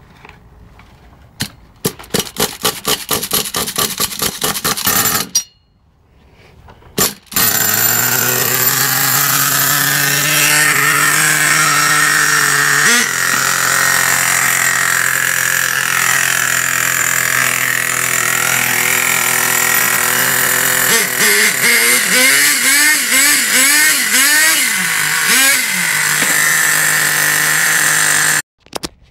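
Small two-stroke glow-plug nitro engine of an RC car being started. It sputters in rapid pulses for a few seconds and stops, then catches about seven seconds in and runs at a steady high-pitched idle. The throttle is blipped several times near the end, each blip rising and falling in pitch, before the engine cuts off.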